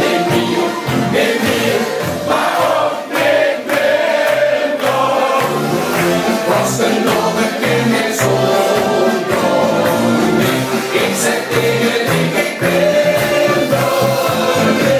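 Upbeat music with a steady beat, with several men singing together into microphones.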